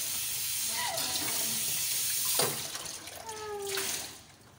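Kitchen tap running steadily into a sink, shut off about four seconds in.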